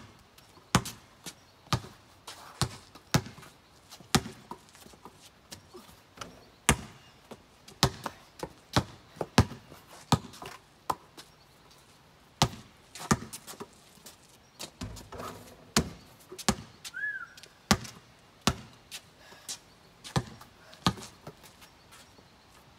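Basketball being dribbled, a run of sharp single bounces roughly one to two a second with short gaps between them.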